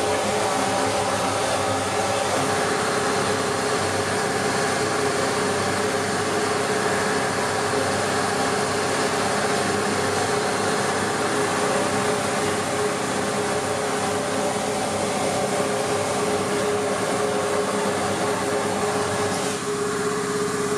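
Vixen Aquablast wet-blasting cabinet running: a steady hiss of the air-driven water-and-abrasive jet blasting an aluminium Subaru EJ20 engine case, over a steady machine hum.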